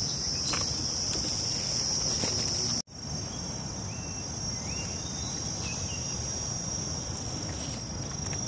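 Steady high-pitched drone of insects, with a low rumble beneath it; the whole sound cuts out for an instant about three seconds in.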